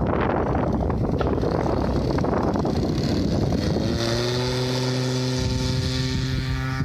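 Wind buffeting the microphone, then about halfway through the model aeroplane's 10cc gas engine and propeller come up in pitch and settle into a steady drone.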